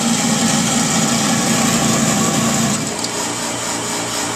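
Motorized target carrier of an indoor range running steadily as it brings a paper target back to the shooting booth. About three seconds in the motor sound changes and a lower steady hum carries on.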